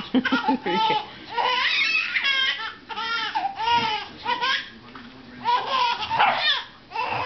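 A baby squealing and giggling in repeated short, high-pitched bursts, excited rather than upset.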